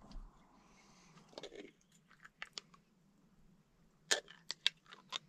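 Faint, scattered clicks and taps of small objects being handled, coming in small clusters with the loudest a little after four seconds in.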